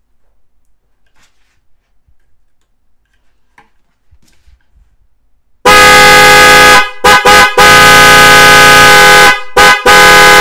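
A pair of 12 V snail car horns, fed from clip leads, sounding together in a loud, steady blare of many tones: a first blast a little over halfway in, two quick toots, a long blast, a brief toot, then another long blast. Before that, only faint clicks of the wires being handled.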